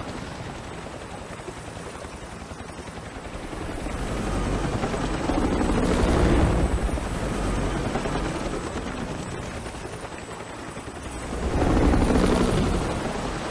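Helicopter rotor and engine noise in a film sound mix, a dense rumble that swells louder about halfway through and again near the end.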